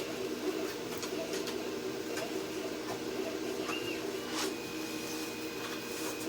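A steady low mechanical hum with a few light clicks, and a thin high tone over the last two seconds.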